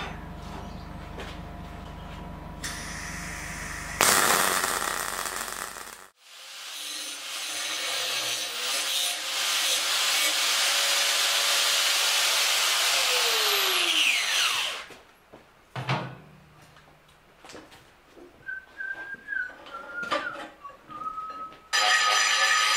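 Small angle grinder grinding on a wrought iron scroll clamped in a vice. It runs steadily for several seconds, then winds down with a falling whine, and it starts grinding again near the end. Earlier there is a steady hum with a short, loud hiss of noise about four seconds in.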